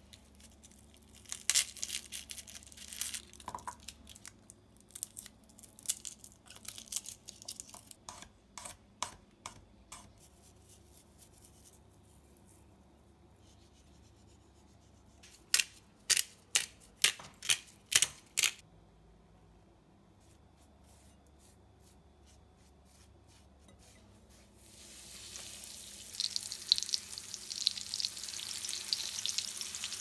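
A knife clicking and scraping on a cutting board as cherry tomatoes are sliced, then a quick run of about six sharp clicks while raw chicken breasts are seasoned. About five seconds from the end, oil starts sizzling steadily as the chicken breasts fry in a pan.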